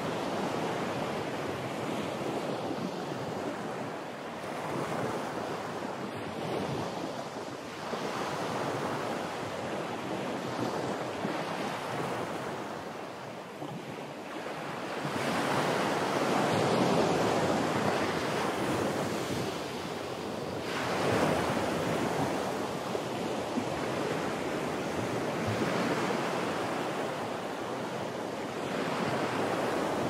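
Recorded rain ambience: a steady wash of rain noise that swells and eases, loudest around the middle.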